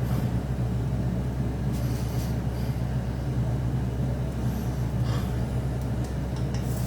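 Steady low hum of a kitchen appliance fan running, with faint brief hissing about two seconds in and again about five seconds in.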